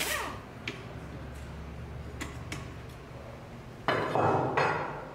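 Light metallic clicks and clinks of tools at the workbench. About four seconds in comes a louder stretch of about a second as a steel pry bar levers the old rubber flex disc off the cardan shaft.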